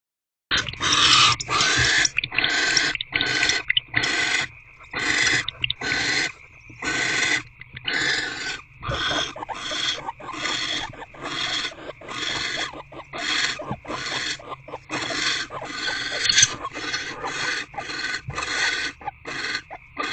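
Barn owls in a nest box giving long raspy hissing calls, one or two a second, the snore-like begging calls of barn owlets.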